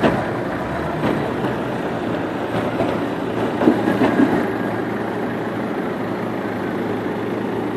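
Excavator's diesel engine running steadily under load, with a few short knocks, most of them about three and a half to four seconds in.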